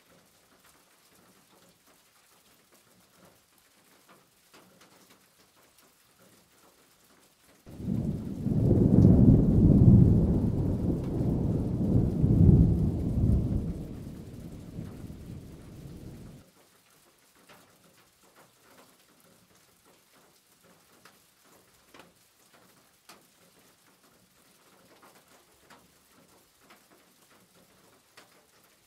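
Knife slicing red chili peppers on a plastic cutting board, faint light taps. About eight seconds in, a loud low rumbling noise starts suddenly and drowns them out, then cuts off abruptly about eight seconds later.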